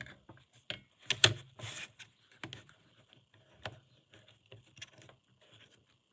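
Small hard clicks and clatters of screwdriver bits being handled and swapped, irregular, with the loudest click about a second in.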